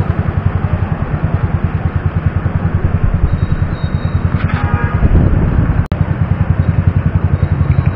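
Motorcycle engine idling close by: a steady, rapid low pulsing. A short high tone sounds about four and a half seconds in, and there is a sharp click just before six seconds.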